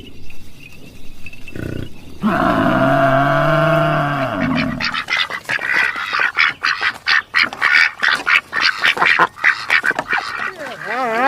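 A run of animal calls in turn: a long drawn-out call with a bending pitch, then ducks quacking rapidly and over one another for several seconds, and near the end the start of a wavering call.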